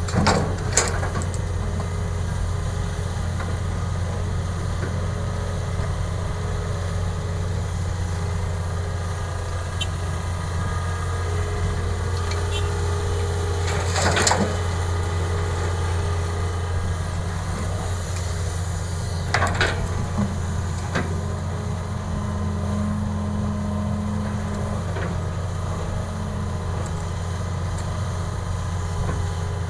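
Excavator's heavy diesel engine running steadily while it loads a truck, with a few sharp clanks from the work, the loudest about halfway through and again a few seconds later.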